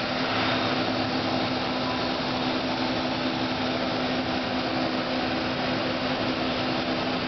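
Mazak Super Quick Turn 15S Mark II CNC lathe running under power: a steady whirring hum with two steady low tones.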